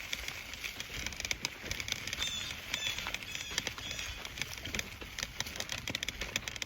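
Footsteps crunching on leaf litter and twigs, with a bird giving several short chirps in the middle.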